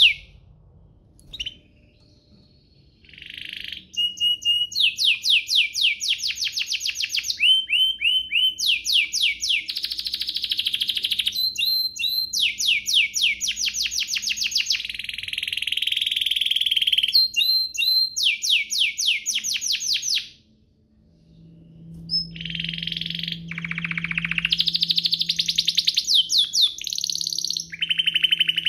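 Domestic canary singing: long rolling song made of rapid trills, each a fast run of identical high notes, one run following another. The song starts a few seconds in, after a single chirp, and breaks off briefly about two-thirds of the way through before carrying on.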